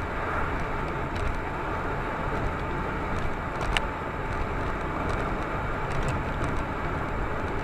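Steady road and engine noise of a moving car, heard from inside the vehicle.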